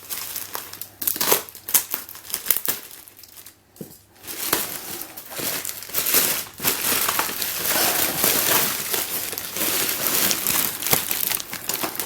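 Packaging crinkling and rustling as it is handled, with a few sharp clicks and crackles in the first seconds, a brief lull, then steady crinkling from about four seconds in.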